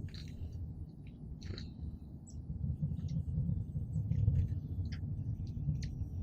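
Small wild birds giving short, high chirps and calls every second or so, over a steady low rumble.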